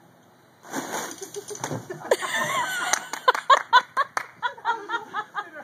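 A man lands on a makeshift trampoline of bare bed springs and crashes onto the grass, with thuds and rustling and a cry. This is followed by rapid bursts of laughter from about three seconds in.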